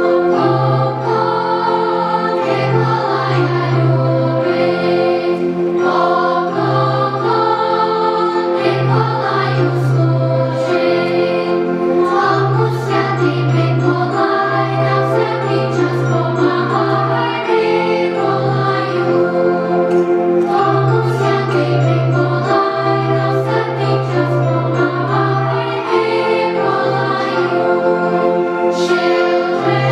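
Children's choir singing a Ukrainian Christmas carol, over a steady low bass line that moves in held notes.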